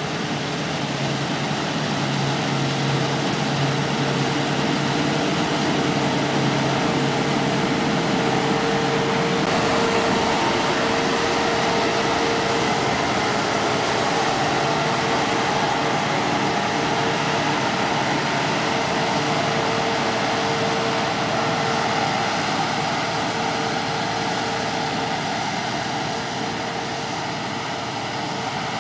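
Claas Dominator 140 combine harvester running steadily while harvesting barley: a continuous machinery drone with a held tone in it, swelling slightly a few seconds in and easing a little near the end.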